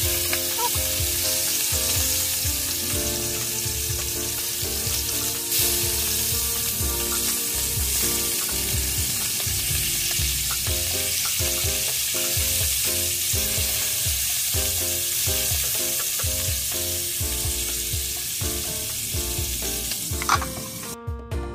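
Fish pieces shallow-frying in hot oil in a nonstick pan, sizzling steadily, with a spatula scraping and turning them. Near the end a metal lid is set on the pan with a clank and the sizzle is cut down sharply.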